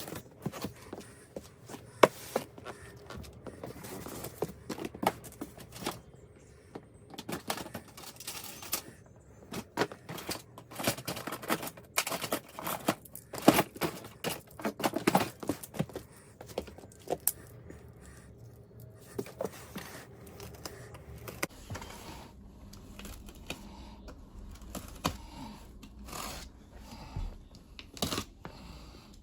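Unboxing a guitar: the cardboard box and packing material being handled, with irregular scrapes, crinkling, tearing and sharp clicks and knocks.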